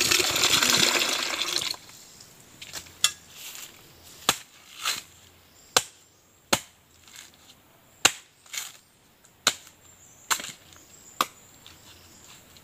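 Coconut water splashing out of a young coconut into a plastic pitcher for under two seconds. Then a machete chops into the husk of another young coconut: about ten sharp strokes, roughly a second apart.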